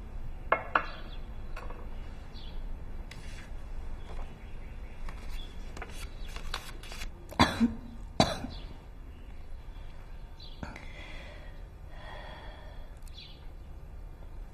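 A few short coughs over quiet room tone: a quick pair about half a second in, then three louder ones in close succession around seven to eight seconds in.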